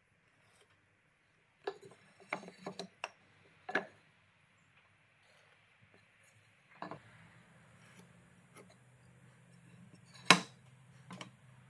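A pine board being handled and laid on a table saw's steel top: scattered light clicks and knocks, with the loudest sharp knock about ten seconds in as the board is set down.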